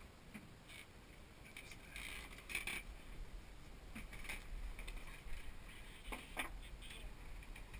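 Scattered light clicks, taps and rustles of small gear being handled on a wooden table, clustered about two to three seconds in and again near the end, over a faint low hum.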